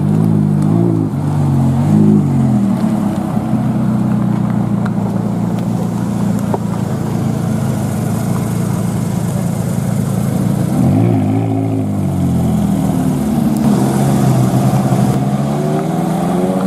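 A McLaren 570S's twin-turbo V8 blips its throttle twice as it pulls away, then a Porsche 911 GT3 RS's naturally aspirated flat-six runs at low revs as it rolls along. The Porsche revs briefly about 11 s in and again near the end.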